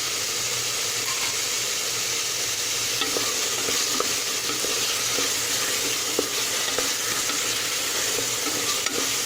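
Tomatoes and a ground onion-garlic-spice paste sizzling in sesame oil in an open pressure cooker while being stirred, with a few light clicks against the pot.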